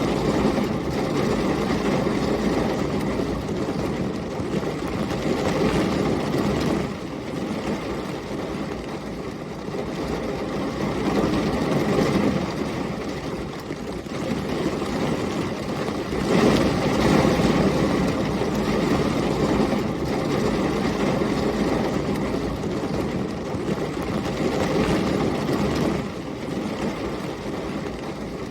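Thunderstorm ambience: heavy rain and gusting wind, a dense, deep rushing noise that swells and eases every few seconds, with dips about a quarter of the way in and again near the end.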